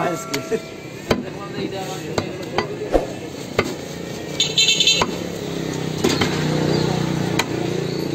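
Cleaver chopping beef on a wooden stump block: sharp, irregular chops roughly one a second. A plastic bag crinkles briefly about halfway through, over background voices.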